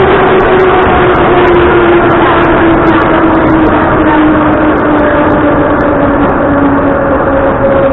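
Moscow Metro train braking into a station, heard from inside the car: loud running and wheel noise with a motor whine that falls slowly in pitch as the train slows.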